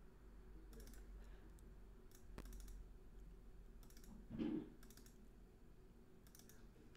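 Faint computer mouse clicks, several in quick pairs as folders are double-clicked open, over a low steady hum. A short, louder low sound comes just after four seconds in.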